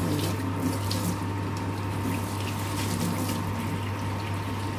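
Red lentil fritters (dal bora) deep-frying in a pan of hot oil: a steady sizzle with faint scattered crackles, over a steady low hum.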